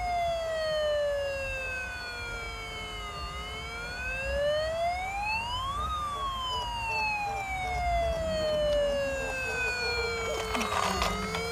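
Toy fire truck's electronic siren wailing: one tone that slides slowly down, climbs back up more quickly and slides down again, repeating in long sweeps.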